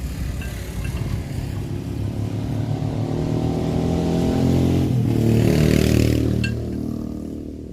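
A motor vehicle's engine passing by, growing louder to a peak about six seconds in and then fading away.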